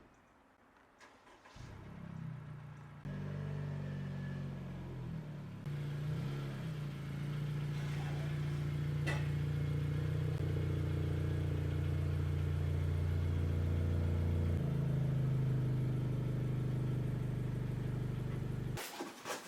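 A car engine starts about a second and a half in and then runs steadily at idle, its low hum shifting slightly in pitch a few times. It stops abruptly near the end.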